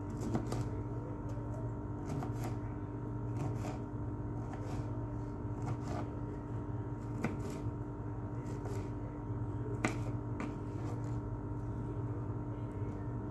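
Potato, onion and egg mixture frying in oil in a frying pan, the oil sizzling with many irregular small crackles and pops over a steady low hum.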